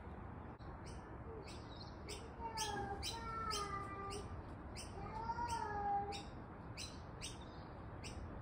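A small bird chirping repeatedly, short high chirps about three a second. Twice, a longer, lower drawn-out sound with a pitch, lasting about a second and a half and then about a second, rises over the chirping.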